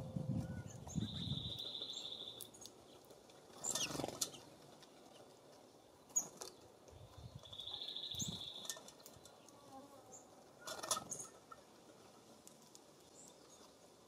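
A small songbird's dry, buzzy trill on one steady high pitch, about a second long, given twice about seven seconds apart. Between them, two short, sharp fluttering knocks, the loudest sounds here, like birds landing on or leaving the feeders, and a low rumble at the very start.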